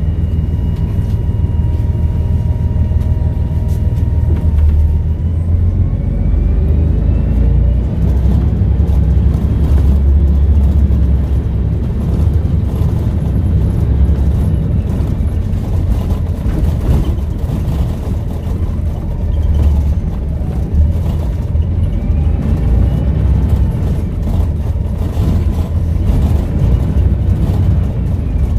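Volvo B7RLE bus's seven-litre six-cylinder diesel running under load through its Voith automatic gearbox, with a turbo whistle that rises in pitch about five seconds in and rises and falls again later as the revs change.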